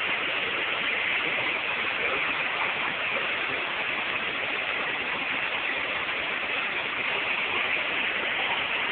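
Steady rushing roar of a waterfall, an even hiss of falling water with no break or change.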